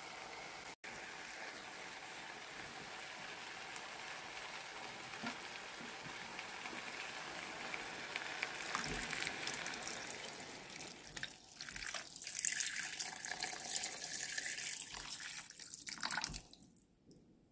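Meat and onions sizzling steadily in a frying pan. About eight seconds in, water is poured into the hot pan and runs and splashes, louder, for several seconds, with a couple of short breaks, before stopping.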